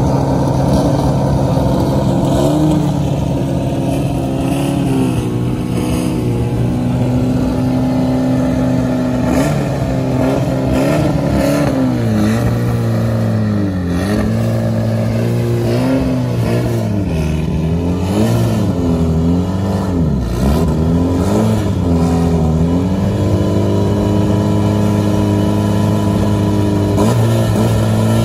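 Mitsubishi Lancer Evolution track car's turbocharged four-cylinder engine idling, then revved in a series of short blips, rising and falling again and again, with a few more near the end.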